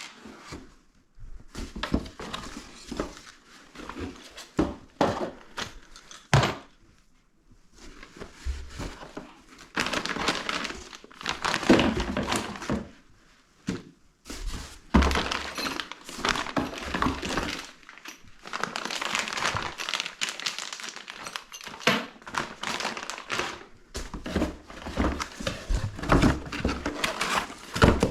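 Unpacking by hand: cardboard box and packaging crinkling and rustling, with irregular knocks and thunks of loose crossbow parts being handled.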